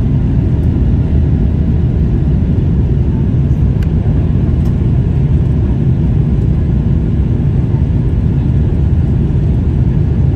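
Steady low rumble of a Boeing 777-300 airliner in flight, its engine and airflow noise heard from inside the cabin at a window seat.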